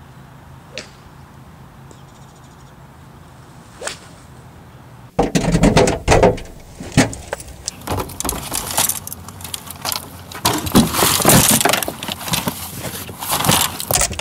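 A golf club strikes a ball with one short sharp click under a second in, with a second faint click a few seconds later. From about five seconds in, loud irregular clattering, knocks and bumps of gear being handled in a car trunk.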